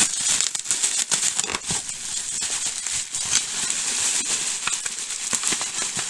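Bubble wrap crinkling and rustling as it is handled and pulled off a hard plastic toy, with many small crackles throughout.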